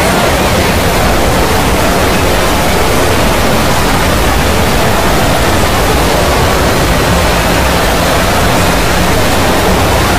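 Many cartoon soundtracks playing on top of one another, blurring into a loud, steady, noise-like din with faint traces of voices and music.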